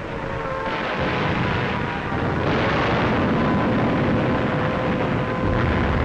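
Old film soundtrack of a night air raid: a dense, continuous rumble of explosions and gunfire, with a steady held tone over it.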